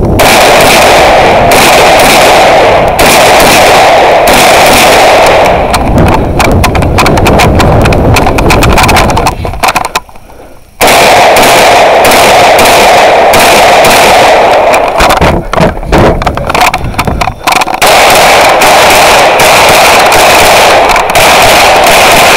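Rapid gunfire from a competitor's own rifle and pistol, fired right at a body-worn camera, so loud that the recording clips almost throughout. There is a short break about ten seconds in.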